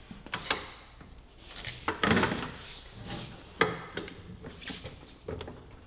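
Hydraulic floor jack being worked under a motorcycle, lifting it slightly: a string of irregular metallic clunks and knocks, the loudest about two seconds in.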